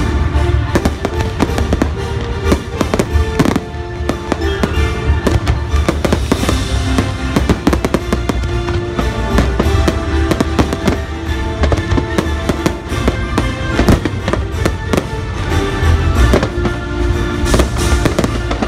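A fireworks display going off in many rapid bangs over a heavy low rumble, mixed with loud show music.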